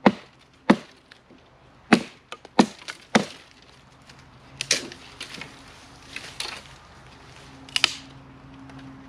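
Wood being chopped: five sharp strikes in the first three seconds or so, then quieter cracks and snaps of wood.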